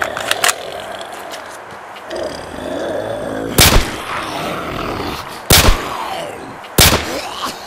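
Three pistol gunshot sound effects, each with a long echoing tail. The first comes about three and a half seconds in, and the other two follow about two and one and a half seconds apart.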